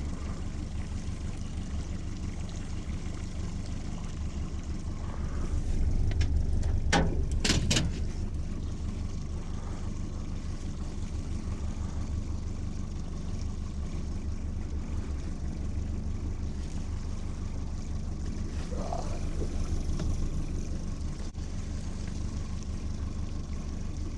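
Boat's outboard motor running steadily with a low, evenly pulsing drone. A few sharp knocks come about seven seconds in.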